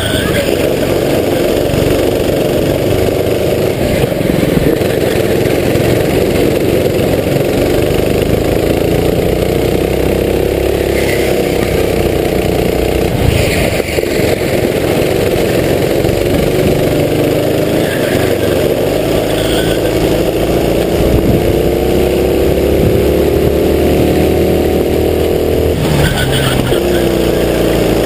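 Racing kart engine heard from onboard, running hard, its note climbing as the kart accelerates and dropping as it slows for corners, with clear drops about halfway through and near the end.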